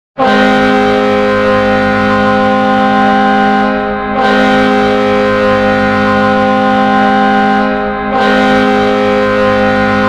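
The Danbury Jr. Hat Tricks' ice hockey goal horn sounding a steady chord in long blasts of about four seconds each, with brief breaks between them.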